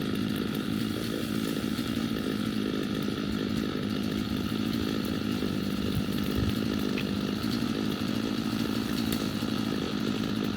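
Chainsaw running at a steady speed without breaks.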